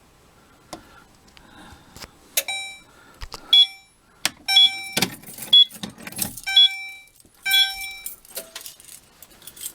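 A key rattling and clicking in a Fire-Lite BG-12L pull station, then the fire alarm sounder giving about five short tone pulses roughly a second apart. This is the panel's walk test briefly sounding the alarm for the device just activated.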